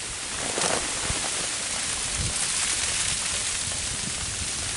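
Freezing rain falling steadily, a dense hiss and patter on ice-coated branches and frozen leaf litter, with a sharper crackle about half a second in.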